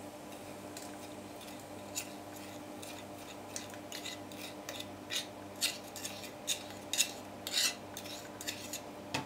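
A metal teaspoon scraping and tapping: irregular short scratches that come thicker from about five seconds in, as baking soda in the spoon is quenched with vinegar over the batter jug.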